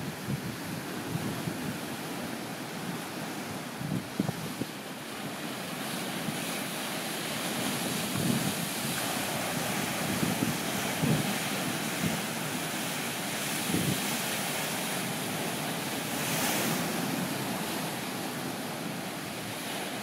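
Lake Superior waves breaking and washing over a rocky shoreline, a steady surf hiss that swells a few times, with gusts of wind buffeting the microphone.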